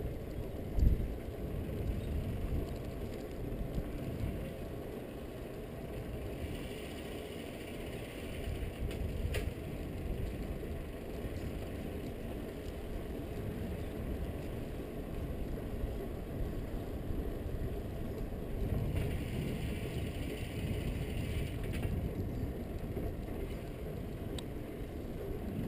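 Bicycle being ridden on asphalt: a steady low rumble of tyres and wind on the microphone, with a single loud bump about a second in and two stretches of fainter higher hiss.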